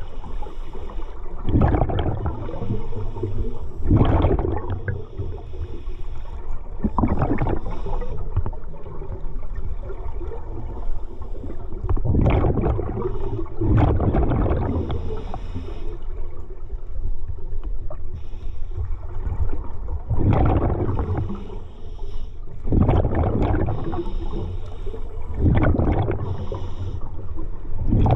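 Underwater sound picked up by an action camera in its waterproof housing: rushing, bubbling surges of water every two to three seconds, with a calmer lull about halfway through.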